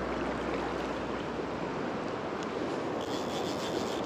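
Fast river water rushing steadily over rocks, with a brief higher-pitched buzz about three seconds in.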